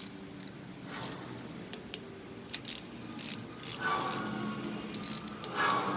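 Ratchet of a torque wrench clicking in short irregular bursts as the coolant bypass bolts on an LS1 engine are run down to 106 inch-pounds, with faint background music.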